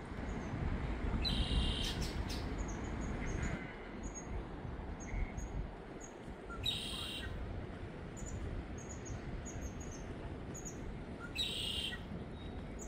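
Birds calling in a meadow: short high chirps repeat throughout, and a louder harsh call comes three times about five seconds apart. A low rush of river water sounds under them for the first few seconds.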